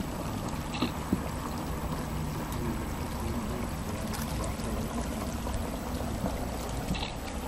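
Steady rush of a shallow creek running over gravel, with a couple of short knocks about a second in.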